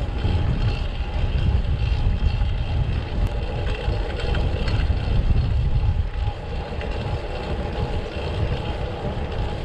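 Wind rumbling on the microphone of a moving cyclist over street traffic noise, a steady heavy rumble with no clear single event.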